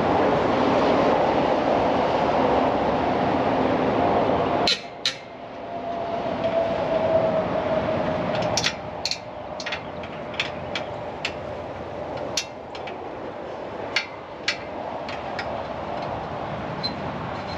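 A loud, steady rushing machine noise that cuts off suddenly about five seconds in. It is followed by scattered sharp metallic clinks and taps, like tools and hardware being handled.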